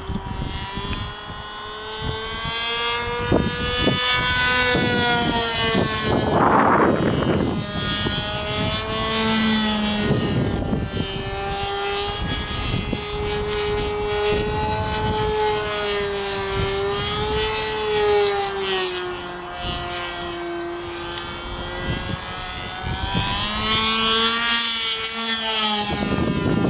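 Ripmax Bossanova radio-controlled aerobatic model plane flying overhead on its .46–.53-size model engine, the engine note rising and falling in pitch as it throttles and manoeuvres. Wind rumbles on the microphone a few times.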